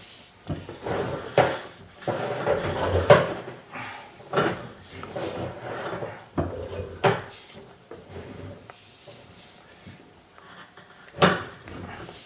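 A series of irregular wooden knocks and clunks, about six sharp ones, with softer handling sounds between them.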